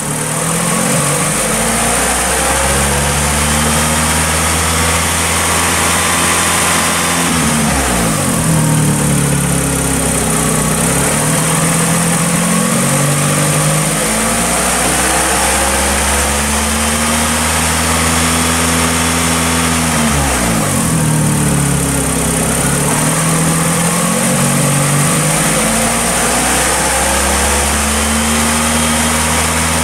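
Chery SQR484F 2.0-litre 16-valve four-cylinder petrol engine revved and held at high revs. It drops back toward idle twice, about a third and two thirds of the way in, and the revs are raised again each time.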